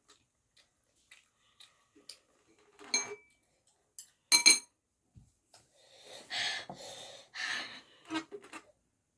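Eating utensils clicking and clinking against a bowl of instant noodles, with a sharp clink about three seconds in and a louder pair just after four seconds. Two longer airy breaths follow between about six and eight seconds.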